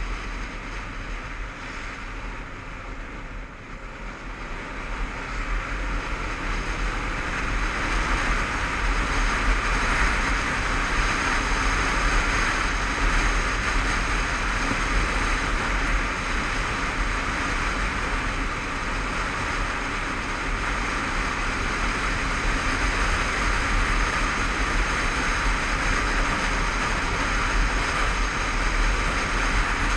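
Honda CBF500 motorcycle on the move, heard through a helmet-mounted camera: a steady rush of wind over the microphone with the engine running beneath it. The rush grows louder about four to eight seconds in, then holds steady.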